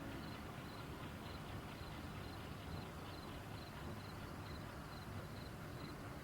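Quiet outdoor background: a steady low rumble with a faint high chirp repeating a couple of times a second.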